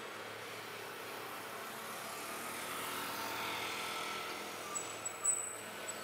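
A vehicle passing: a steady rumbling noise that swells and fades, with a few sharp clicks near the end.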